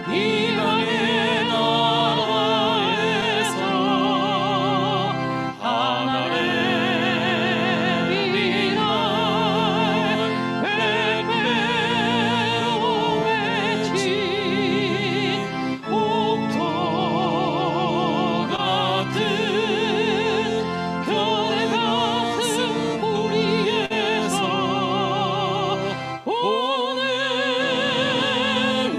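A woman singing a Korean song solo in a high voice with wide vibrato, over steady instrumental accompaniment. She pauses briefly between phrases three times.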